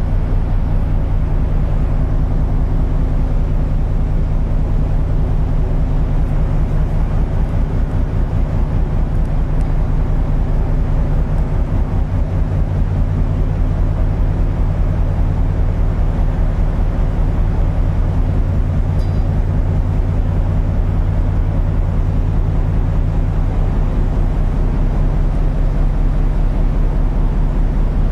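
A towing vessel's engines running steadily under load as it tows an oil rig: a loud low drone with a fast, even throb.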